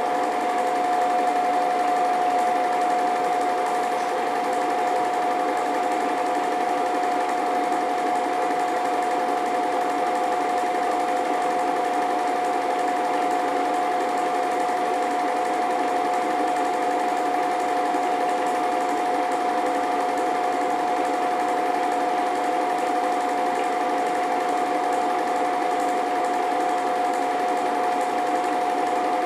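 Film projector running: a steady mechanical whir with a constant humming tone that does not change.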